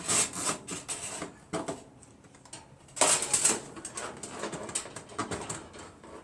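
Choke cable being pushed through its mounting hole on a garden tractor: a run of irregular small clicks and rattles, with a louder cluster about three seconds in.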